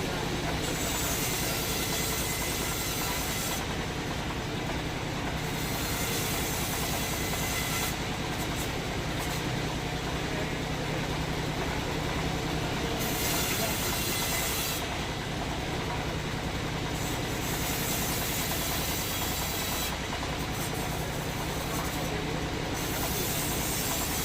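Sawmill machinery running steadily with a low hum, and a high hiss that comes and goes every couple of seconds as the saw works through wood.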